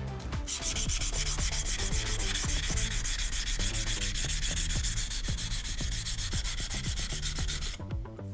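VG10 nakiri knife blade being stroked back and forth on a whetstone, a rapid, even, rhythmic scraping that starts about half a second in and stops shortly before the end.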